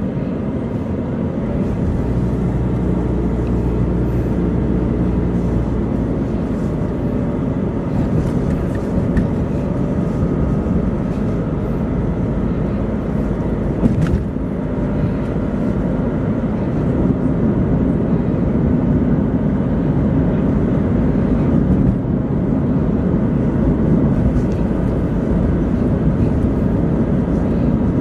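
Car cabin noise while driving: a steady low rumble of tyres and engine, with a faint engine hum early on and a brief click about halfway through.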